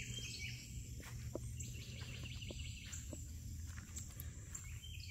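Outdoor insect and bird ambience: a steady high insect drone with repeated short chirping calls over a low steady rumble.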